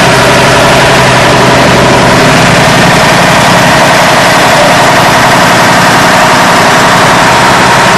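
Aerial ladder fire truck's diesel engine running at a steady pitch, loud and close, while it powers the ladder being raised.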